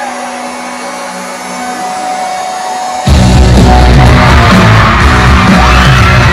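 Theatre crowd screaming and cheering over faint music. About three seconds in, much louder music with heavy bass cuts in, and the crowd keeps screaming over it.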